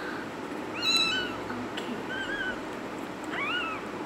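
Two-week-old kitten mewing: three short, high-pitched mews, the loudest about a second in and two fainter ones after it.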